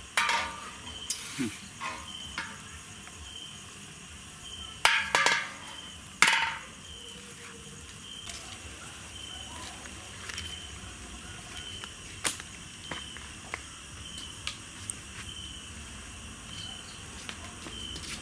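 An insect chirps steadily, a short high chirp about every two-thirds of a second. Several sharp clatters sound over it, the loudest two about five and six seconds in.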